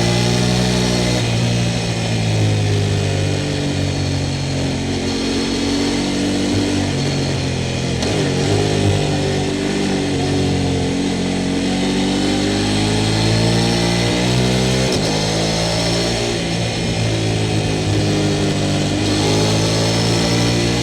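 Sport motorcycle engine running hard, its revs rising and falling again and again as it accelerates and changes gear, with a sudden shift in the engine note about fifteen seconds in.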